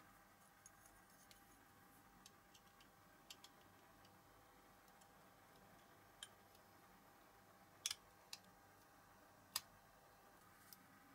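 Faint clicks and taps of a diecast Matchbox Mercury Commuter's metal base and body knocking together as they are handled and fitted, with a few sharper clicks about two-thirds of the way in.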